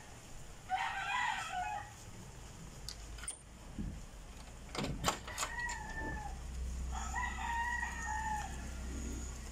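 Roosters crowing several times: a crow about a second in, a shorter one around the middle and another near the end. Between them come a few sharp clicks and knocks, loudest about five seconds in, as the latch of a wooden glass-paned French door is worked and the door is opened.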